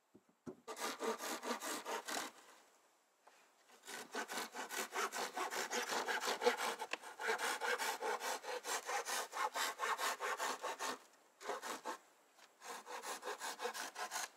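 Hand saw cutting through a wooden board: quick, even back-and-forth strokes in several runs broken by short pauses, the longest running for about seven seconds in the middle.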